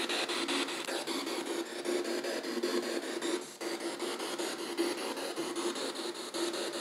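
P-SB7 spirit box sweeping through FM radio frequencies: a constant hiss of radio static chopped into rapid, even clicks, about seven or eight a second, as it hops from station to station, with a steady hum underneath and a brief dip about halfway through.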